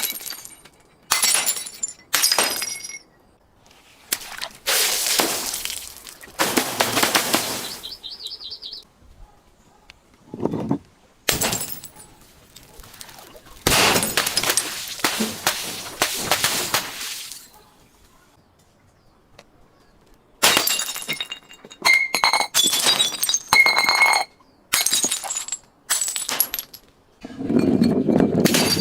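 Glass bottles breaking in a long series of separate smashes. Some are short sharp cracks, others are crunching shatters lasting a few seconds, with high ringing clinks of glass pieces. Near the end a duller, lower crunching begins.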